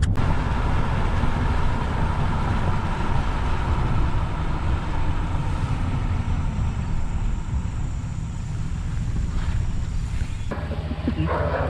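Ram pickup truck driving on the road, heard from inside the cab: a steady rumble of engine and tyre noise. The sound changes abruptly about ten and a half seconds in.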